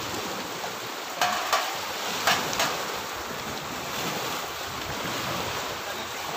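Small waves washing onto a pebble beach, with wind on the microphone. Four short sharp clicks in two pairs come between about one and three seconds in.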